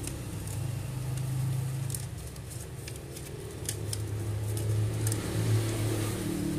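Sheet of paper being folded and creased by hand, with scattered short crackles and clicks, over a steady low hum.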